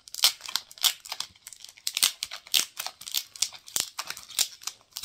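Crinkly plastic wrapping of a blind-packed acrylic stand being opened by hand: a quick, irregular run of sharp crackles and rustles.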